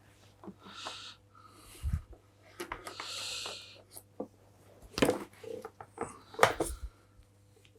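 Clicks and knocks of tools and parts being handled on a workbench, with two short hissing breaths and a faint steady low hum under them.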